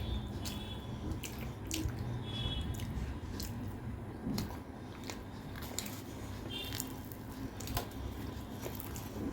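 Close-miked eating sounds: chewing and biting soft food, with frequent short, wet mouth clicks.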